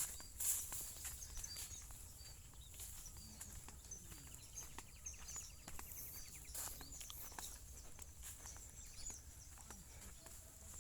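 Quiet outdoor ambience with small birds chirping here and there and a short fast trill about four seconds in, over a steady high hiss and scattered light clicks.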